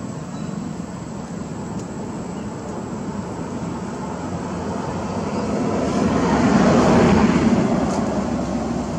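A passing engine: a steady rumble that swells louder, peaks about seven seconds in, then fades away.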